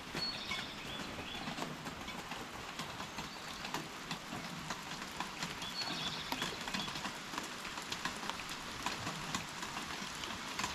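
Steady rush of outdoor water, like a stream, full of small ticks and splashes, with a short high chirping phrase near the start and again about six seconds in.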